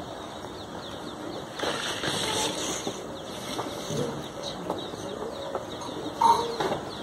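Birds chirping and calling in the background, with rustling and scraping as a length of PVC pipe is shifted in loose soil.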